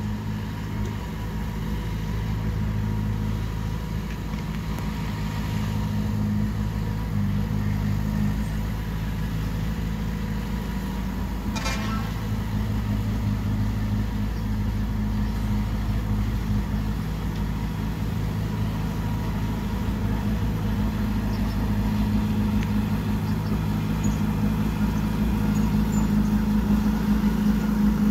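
Heavy-equipment diesel engine running steadily, growing slightly louder near the end, with one short click about twelve seconds in.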